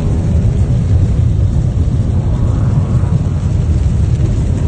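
Heavy rain beating on a car's windshield and roof, heard from inside the cabin, over a loud, steady low rumble.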